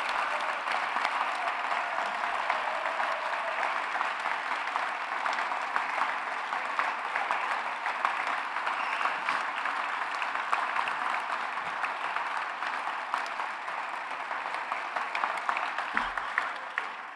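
Large indoor audience applauding, a dense and steady patter of many hands clapping that begins to die away only at the very end.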